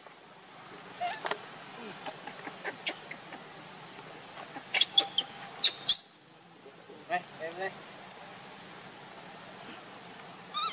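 Steady high-pitched insect drone, with a few short sharp chirps or clicks over it, the loudest about six seconds in.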